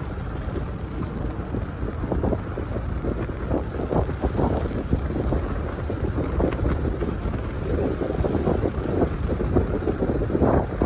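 Wind buffeting the microphone in irregular gusts over the steady low rumble of a car driving along a street.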